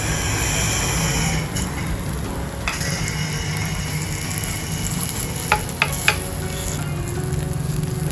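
Potato masala sizzling and being stirred in a miniature frying pan, with three sharp taps close together a little past halfway.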